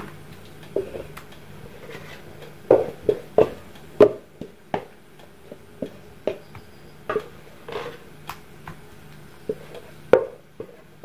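Wooden spatula scraping and knocking against a pot as a thick cooked batter is scooped out into a plastic tray: irregular short taps and scrapes, a few sharper knocks, over a faint steady hum.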